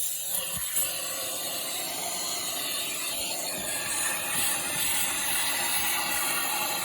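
BMW E38 740i electric fuel pump running steadily under strain, a hiss with a faint high whine. The uploader puts this down to a clogged fuel filter that makes the pump work at full power.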